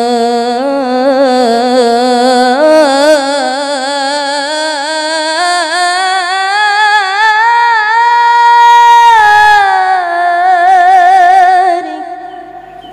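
A qori's solo voice singing a long, heavily ornamented melismatic line without accompaniment. It climbs slowly in pitch to a high held note about eight seconds in, breaks briefly, then settles on a lower wavering note that fades near the end.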